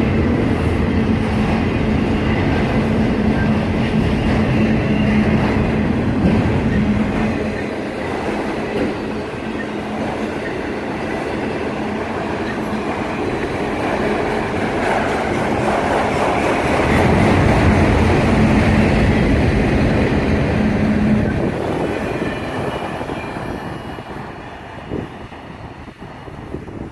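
A freight train's cars rolling past close by, steel wheels running on the rails with a steady hum. The sound fades away over the last few seconds as the train moves off.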